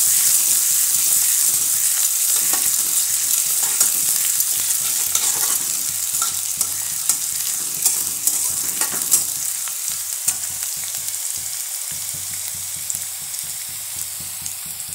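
Chopped onion and green chillies sizzling in hot oil in a metal kadhai while being browned, stirred with a metal spatula that scrapes and clicks against the pan now and then. The sizzle slowly dies down.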